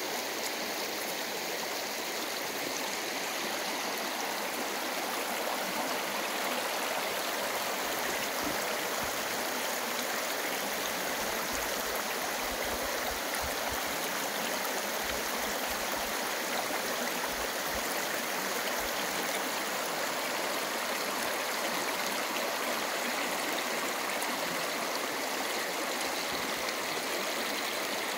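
Shallow river running over a rocky gravel bed: a steady rippling rush of water through the riffles.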